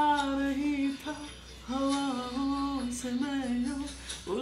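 A voice singing a slow melody in long, slightly wavering held notes, with a short pause about a second in.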